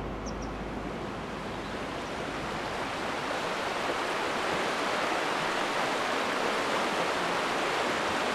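A steady rushing noise that slowly grows louder.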